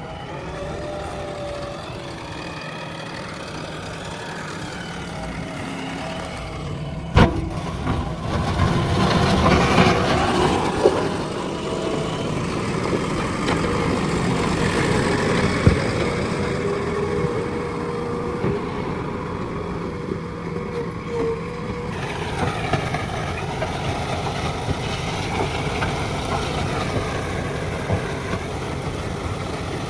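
Diesel engine of a JCB 3DX backhoe loader running steadily, working harder and louder from about eight to twelve seconds in. A single sharp knock about seven seconds in, and a lighter one later.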